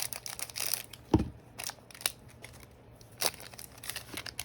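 Trading cards being handled and slid through by hand: a run of short scrapes and flicks, with one louder thump about a second in.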